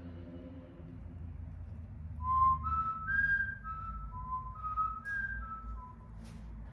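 A man whistling a short, slow tune of about ten clear single notes, starting about two seconds in and stopping about six seconds in.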